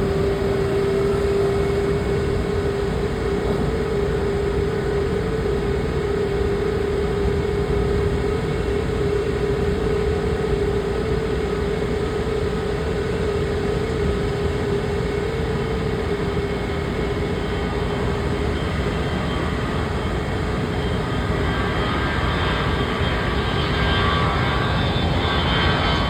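Jet airliner engines running at low taxi power: a steady rumble with a steady hum that fades out about two-thirds of the way through, and a higher whine near the end.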